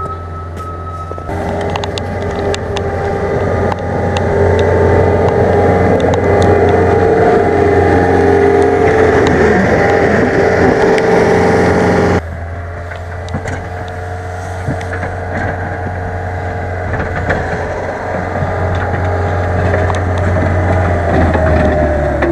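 John Deere 324G skid steer's diesel engine running hard while pushing snow with a pusher box, with steady engine tones throughout. Its reversing alarm beeps during the first second. The sound changes abruptly about twelve seconds in.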